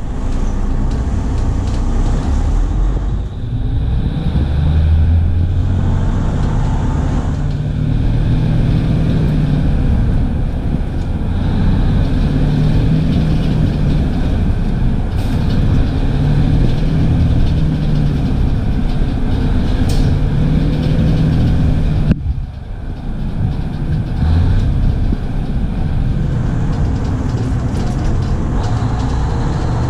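Inside a 1971 Crown Super Coach tandem-axle school bus cruising on a highway: the engine's steady low drone mixed with road and wind noise in the cabin. The sound drops out briefly about two-thirds of the way through, then carries on.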